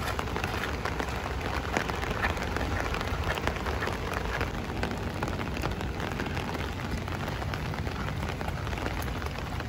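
Steady heavy rain falling, a continuous hiss of rainfall with many sharp individual drop hits close by.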